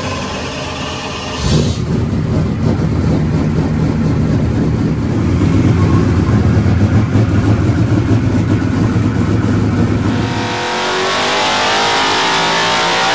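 Naturally aspirated Ford Coyote V8 race engine on an engine dyno fires up about a second and a half in and runs with a low, lumpy rumble through open long-tube headers. Near the end it climbs to high rpm and holds a loud, high-pitched scream.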